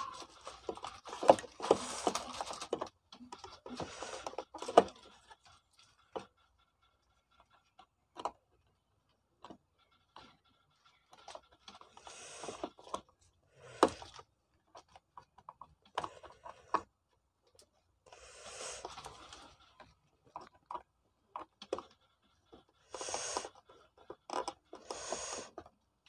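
Gloved hands handling a coffee grinder's plastic housing and wiring: scattered rustles, scrapes and light clicks as wire connectors are worked at, with short bursts of scraping spread through and a cluster near the end.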